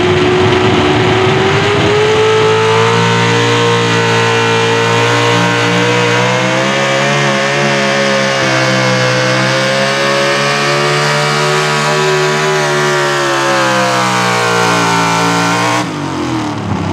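Pro Stock four-wheel-drive pulling truck's engine at full throttle, dragging the weight sled down the track. The note climbs over the first two seconds, then holds high with slight rises and dips under load. Near the end the throttle is cut and the note drops away suddenly as the pull ends.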